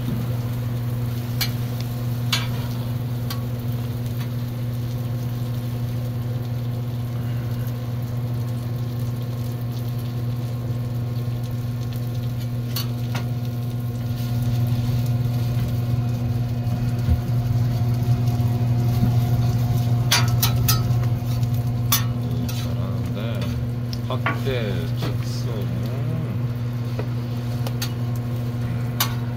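Egg-and-vegetable patties and toast sizzling on a flat steel griddle over a steady low hum. Now and then a metal spatula clicks and scrapes on the griddle plate. The whole is louder for several seconds midway.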